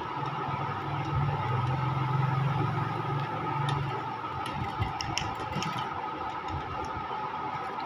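Sewing machine running as it stitches a cuff onto a sleeve, then stopping about four seconds in, followed by a scatter of light clicks and knocks.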